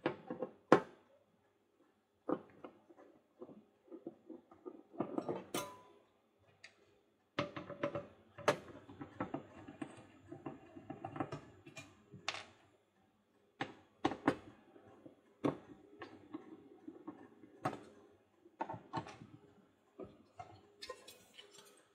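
Screwdriver backing out the small screws of a metal ECU case, with irregular clicks, scrapes and knocks as the screwdriver and the aluminium housing are handled.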